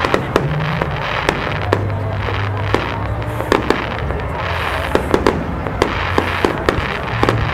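Aerial firework shells bursting in a rapid, irregular run of sharp bangs, about two to three a second.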